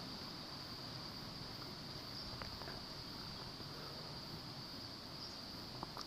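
Faint, steady high-pitched hiss of background room tone, with a couple of faint small clicks as the opened speaker's circuit board is handled.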